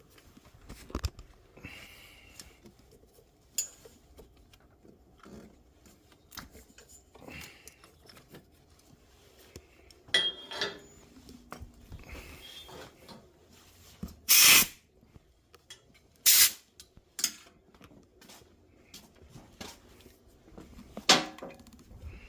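Scattered clicks and handling knocks, then two short blasts from a compressed-air blow gun about two seconds apart, blowing dirt out of the spark plug wells before the plugs come out.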